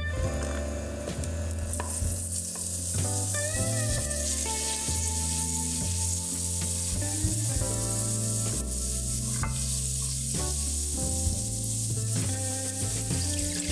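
Melted margarine sizzling in a hot stainless steel pot with chopped garlic frying in it, stirred with a wooden spoon.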